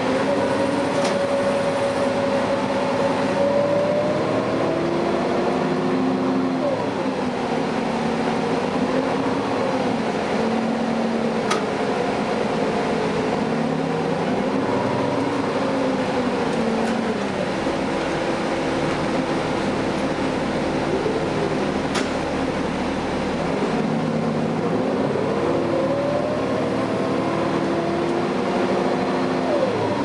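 Cummins ISL9 diesel engine and Allison B400R automatic transmission of a Gillig Advantage transit bus, heard from inside the cabin while under way: a steady drone with a whine whose pitch falls and climbs again several times as the bus changes speed and gear. A few faint sharp clicks.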